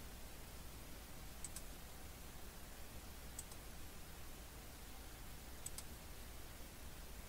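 Computer mouse button clicking, faint, three times, each a quick double tick, over a steady low hum.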